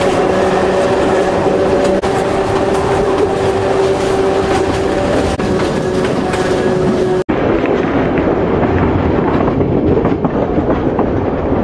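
Train Jaune metre-gauge electric train heard from an open car, running with a steady whine over the rumble of the wheels on the rails. After an abrupt cut about seven seconds in, the whine is gone and only the rolling noise of the wheels remains.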